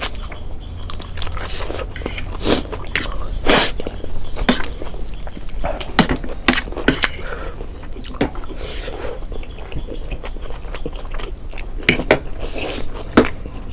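Eating sounds of black bean noodles and side dishes: chewing and biting, with many irregular short, sharp smacks and clicks.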